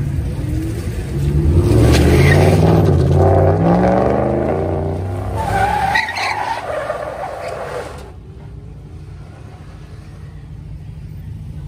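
A pickup truck's engine revving hard, rising in pitch, while its rear tyres spin and squeal on asphalt in a burnout. The loudest part comes in the first half, with a second squeal around six seconds in. At about eight seconds the sound drops suddenly to a lower, steady rumble.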